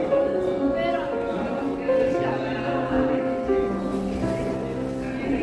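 Background music: a slow, gentle melody of long held notes.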